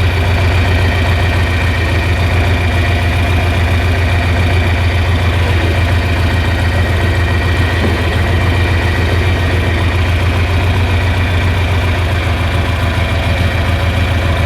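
John Deere 4020 tractor engine running steadily at idle, a low even throb.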